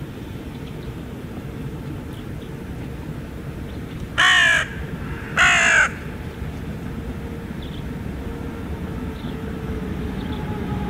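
A crow cawing twice, loud and harsh, each caw about half a second long, about four and five and a half seconds in. Beneath it runs the steady low rumble of the approaching 2ES10 electric locomotive and its freight train.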